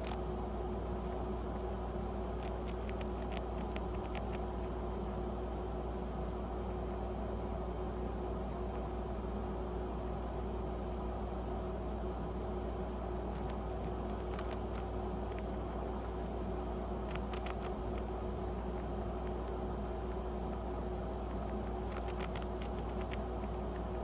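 Pet rat nibbling a cracker: clusters of small, crisp crunching clicks in a few short bouts, over a steady background hum.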